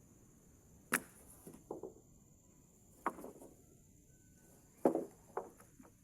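Three sharp wooden knocks about two seconds apart, each followed by a few lighter knocks.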